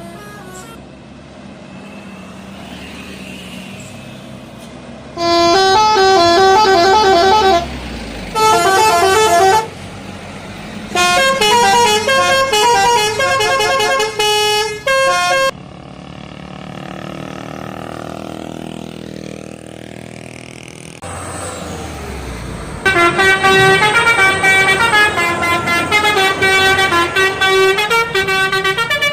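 Indonesian bus 'telolet' musical horns playing quick stepping tunes in several loud bursts: the first about five seconds in, two more before the middle, and a long one from about 23 seconds on. Traffic and engine noise fill the gaps between them.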